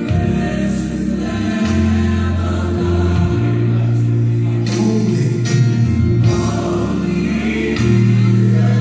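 Gospel choir song with held bass notes, sustained chords and light percussion.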